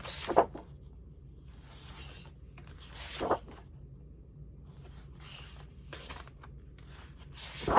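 Sheets of paper and card rustling and sliding as they are handled, in a few short bursts: one just after the start, one about three seconds in, and a louder one near the end.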